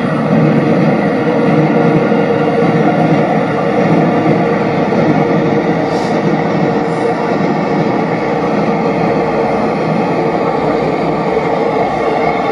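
A train running past: a loud, steady rumble of wheels on track with a faint hum on top.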